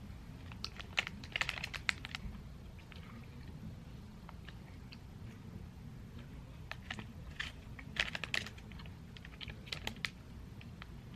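Crackling and clicking of a plastic gummy-candy packet being opened and handled, in short bursts about a second in and again around eight and ten seconds in.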